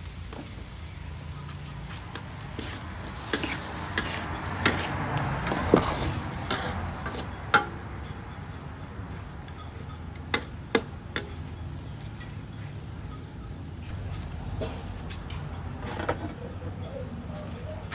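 A metal spatula stirring diced vegetables in a steel wok: scraping against the pan with sharp clinks of metal on metal, busiest in the first half. Near the end comes a softer clank as an aluminium pot lid is handled.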